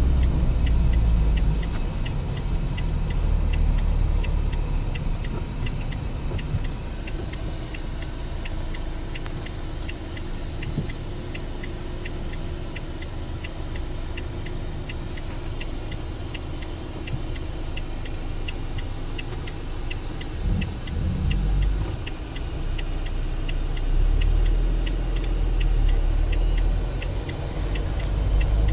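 Low engine and road rumble heard from inside a car's cabin while it drives slowly through junctions, with the turn-signal indicator ticking at an even rate through much of it.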